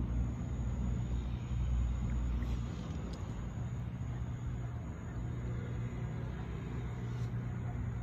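A steady, low engine rumble from an unseen motor.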